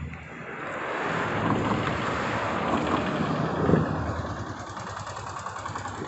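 Rice combine harvester running in the field, a mechanical drone that swells louder for a few seconds in the middle and then eases off.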